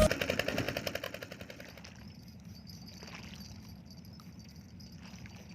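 Background music with an even beat fading out over about two seconds, leaving a faint, steady low hum.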